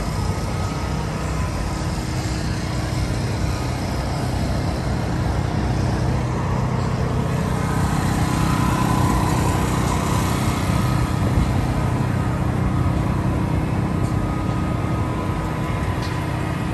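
An engine running steadily at one constant speed, a low hum that does not rise or fall.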